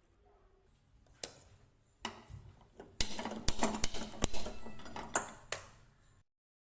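Kitchen utensils clinking and clattering in a run of sharp knocks and clicks, busiest from about three seconds in, then the sound cuts off suddenly.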